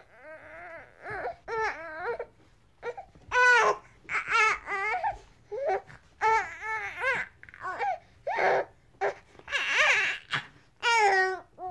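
Baby crying angrily in a run of short, high wavering wails and fussy whimpers, about a dozen cries with brief breaths between them.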